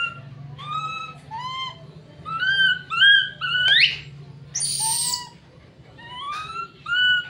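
Baby macaque crying in fear: a run of high-pitched, rising whimper-calls about two a second, breaking into a louder rising shriek and a harsh scream midway through.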